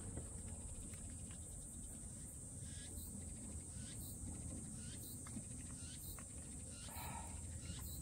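Steady high-pitched summer insect chorus, with faint ticking pulses about once a second and a few short bird chirps, over a low wind rumble.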